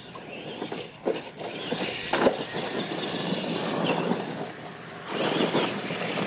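Retro electric R/C monster trucks driving on dirt: motor and gear whine, with a few sharp knocks, the loudest about two seconds in.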